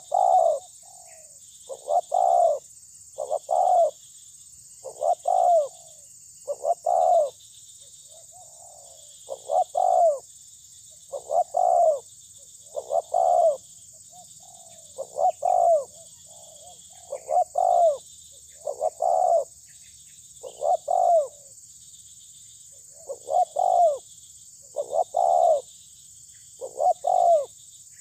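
Spotted dove cooing over and over: short phrases of two or three low notes, repeated about every two seconds with a few longer gaps.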